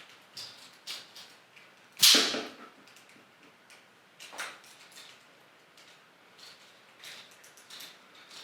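Plastic action figure being handled and posed, with scattered small clicks of its joints and parts. A sharp, louder plastic clack with a short fading swish about two seconds in, and a softer one near four and a half seconds.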